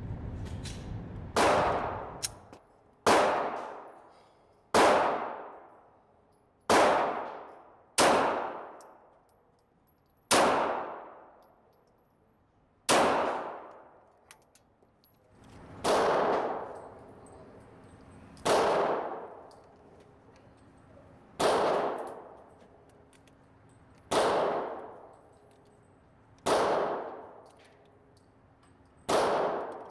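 Glock 17 9mm pistol firing slow, aimed single shots, thirteen in all, spaced about two seconds apart, each shot ringing on and dying away over about a second.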